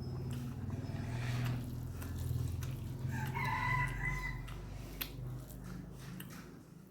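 A rooster crows once, a single call of a little over a second, about three seconds in. Close-up eating sounds with scattered clicks, chewing and handling of food, run underneath.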